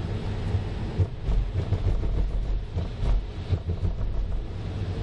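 Car driving on a wet road, heard from inside the cabin: a steady low rumble of engine and tyre noise with a hiss over it, and irregular low thumps through the middle.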